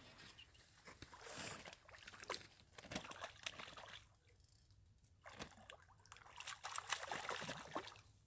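A hooked trout thrashing and splashing at the surface in the shallows while it is reeled in to the bank. The splashing comes in two spells, with a short lull between them.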